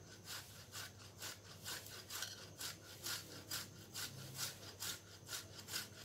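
Boiled potato being grated on the coarse side of a stainless steel box grater: a rasping scrape with each stroke, about two strokes a second.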